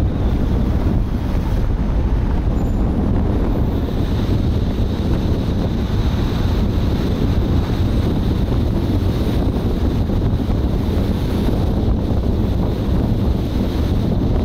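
Steady wind rushing and buffeting over the microphone of a camera on a moving car, mixed with the car's road noise.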